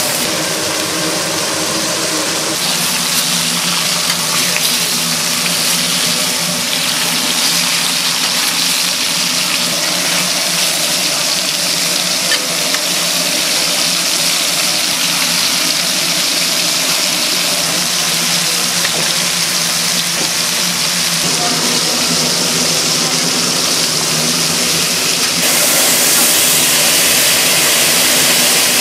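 Steady hiss of fish grilling over a gas-fired grill, with a continuous low hum under it; the hiss grows louder about 25 seconds in.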